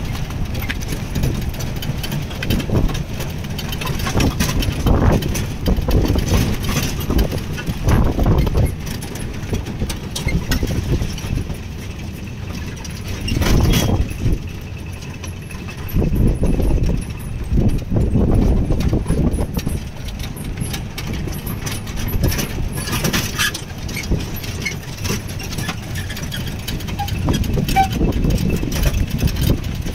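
An old jeep driving along a paved hill road, heard from inside its open-sided cab: the engine running, with the body rattling and knocking. Wind buffets the microphone in uneven gusts.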